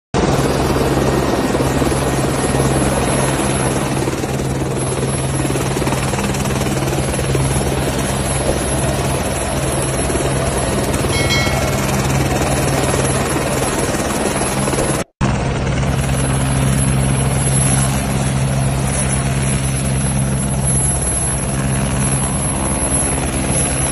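Helicopter running on the ground: a steady engine and rotor drone with a low hum. It cuts out for a moment about fifteen seconds in.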